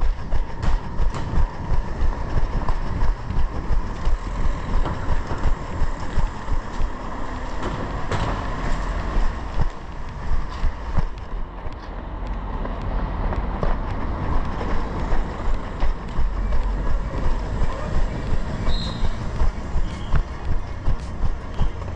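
A runner's footsteps pounding on cobbled and paved street at about three strides a second, heard from a head-mounted camera, over a steady low rumble. The rhythm loosens for a few seconds in the middle, then picks up again.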